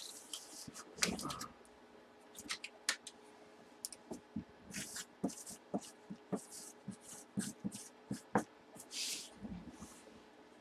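A marker writing on a cardboard box: brief scratchy strokes mixed with scattered light taps and a few dull knocks as the box is handled.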